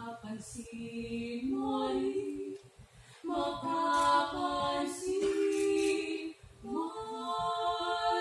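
Women's vocal ensemble singing a cappella in harmony: three phrases of sustained chords, each broken by a short pause for breath.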